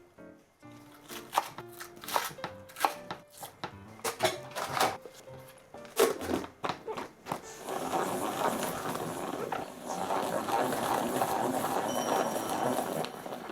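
Kitchen food-preparation sounds over light background music: scattered knocks and clicks, then a steady crackling rustle for the last five seconds or so.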